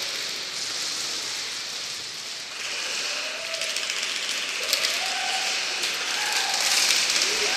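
Airsoft guns firing in a continuous dense crackle, with BBs hitting the plywood walls of the course.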